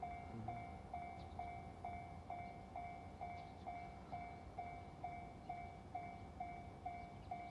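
Railway level-crossing warning bell ringing steadily, an even ding-ding about twice a second, signalling that a train is approaching.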